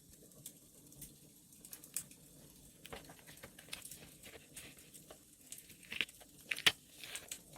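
Paper and stationery being handled for journaling, with soft crinkling and irregular small clicks and taps, over a faint crackling wood fire. The sharpest clicks come about six to seven seconds in.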